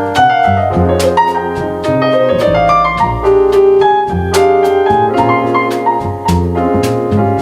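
Acoustic jazz: piano playing chords and runs over double bass, with drum and cymbal strikes keeping time.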